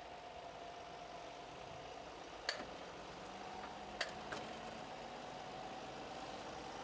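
Tractor diesel engine running steadily at low revs, with a steady whine over the engine. Two sharp knocks about two and a half and four seconds in, then a smaller one.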